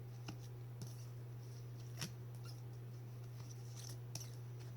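Trading cards being slid and flipped by hand: faint rustles and a few light clicks, over a steady low hum.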